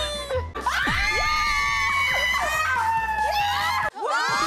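A young woman screaming: one long, high-pitched scream held for about three seconds that cuts off suddenly, then another scream starts near the end.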